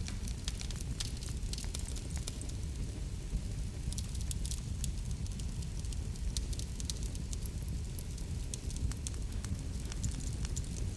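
Wood fire burning in a fireplace: a steady low rumble of flames with many sharp crackles and pops scattered throughout.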